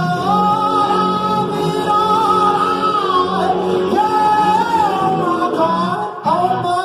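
A live band playing, with a singer holding long, drawn-out notes.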